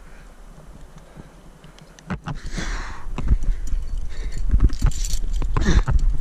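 Irregular knocks, scrapes and rustles of a climber moving on rock, his harness gear clinking, with wind rumbling on the camera microphone. It is quieter for the first two seconds, then the knocks and rustling bursts come thick and fast.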